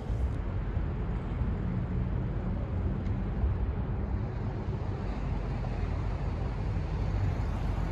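Steady low rumble of road traffic and passing vehicles.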